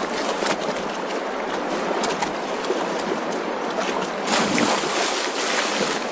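Rushing stream water splashing as a black bear cub lunges through the shallows after salmon, with repeated sharp splashes and a heavier burst of splashing a little over four seconds in.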